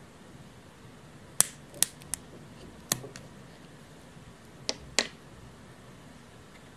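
Scissors snipping through oil-filled gelatin softgel capsules: six sharp, crisp snips, in uneven clusters.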